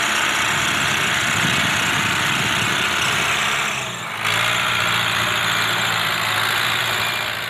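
Tractor diesel engine running steadily as the tractor drives out through deep mud after being freed. About four seconds in the sound dips briefly, and then a steady low engine hum comes through more clearly.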